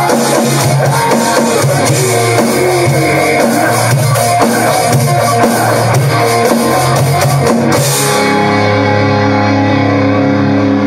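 Heavy metal song playing loudly: distorted electric guitar over drums and cymbals. About eight seconds in, the drums and cymbals stop and a held guitar chord rings on.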